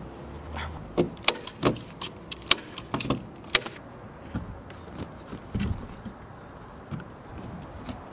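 Irregular sharp clicks and taps from roofing work: a fireproofing membrane being handled and fixed over timber battens. The taps come close together in the first half, then thin out to a few softer knocks.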